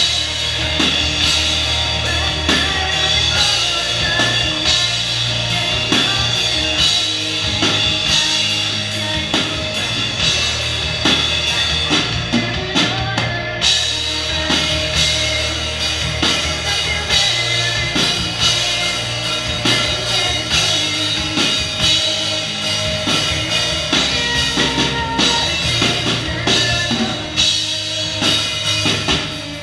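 A rock band playing live: a drum kit keeping a steady beat under loud electric guitar with sustained low notes.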